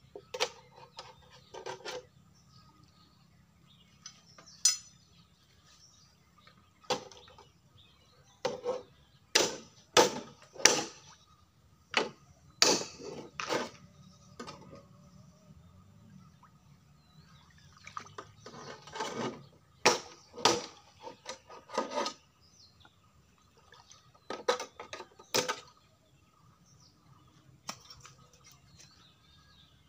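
Irregular splashes and sloshes in shallow muddy pond water, coming in short sharp clusters with quiet gaps, as a man works in the water with basins and a long pole.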